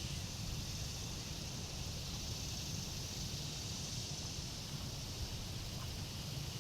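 Steady outdoor background: a constant high insect hum with a low, uneven wind rumble on the microphone.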